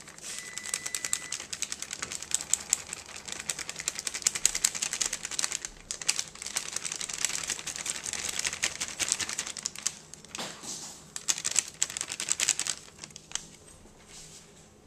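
Dry tempura batter powder pouring into a glass measuring cup: a dense, fast crackling like rapid ticking that stops about two seconds before the end.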